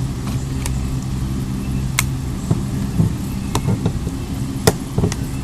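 Several sharp clicks, the loudest about two seconds in and near the end, as the plastic housing of a Samsung Galaxy S Lightray is pried apart with a pick. They sound over a steady low hum.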